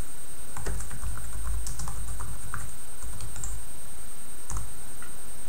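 Typing on a laptop keyboard: a run of irregular keystrokes starting about half a second in and stopping near the end.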